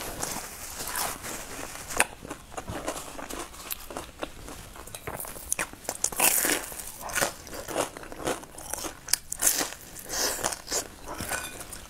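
A person biting and chewing a crispy fried pastry cake, heard close up: repeated crunches and crackles, with several sharper bites.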